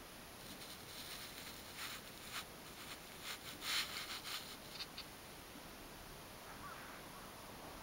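Quiet rustling: a run of short, scratchy noises over a low steady hiss, loudest about three and a half seconds in, then fading out.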